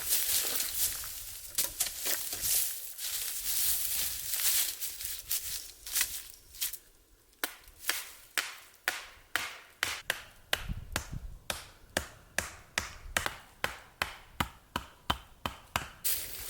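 Rustling and scraping, then a long run of quick, evenly paced chopping strikes, about two or three a second, beginning about six seconds in.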